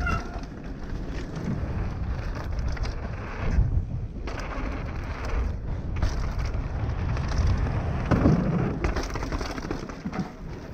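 YT Tues downhill mountain bike ridden fast down a rough trail: wind buffeting the action-camera microphone and the tyres rumbling over dirt and rocks, with the bike clattering over bumps and a rougher stretch about eight seconds in.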